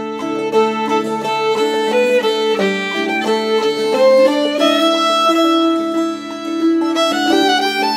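Instrumental background music: a fiddle playing a melody of held notes over plucked string accompaniment.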